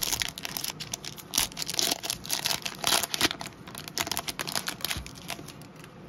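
Trading card pack wrapper being peeled open and crinkled by hand, a quick irregular crackling that thins out near the end.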